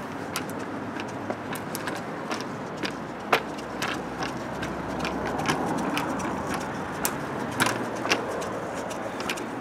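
Small hard wheels of a Razor kick scooter rolling over a concrete sidewalk: a steady rumble, a little louder in the middle, with many irregular sharp clicks and clacks.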